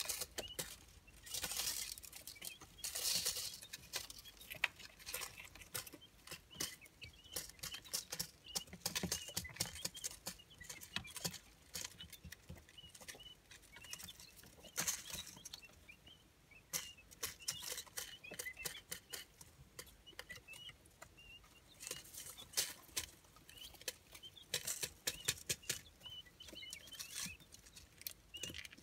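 Three-day-old quail chicks scratching and pecking through shredded-paper bedding: rustling and many short clicks, with soft, high, short peeps throughout.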